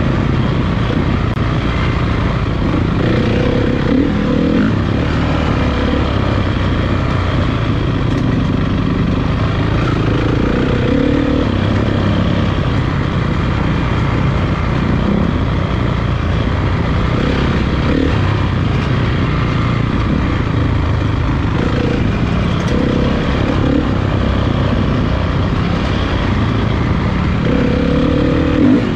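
Motocross motorcycle engines running and revving, with the pitch rising and falling again and again throughout.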